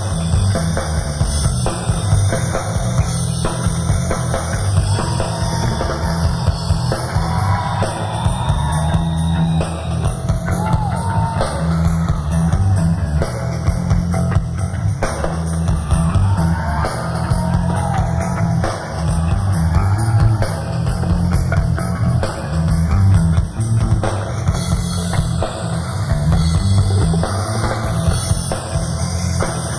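Live punk-grunge rock band playing loud with electric guitar, bass and a pounding drum kit, continuous and without a break.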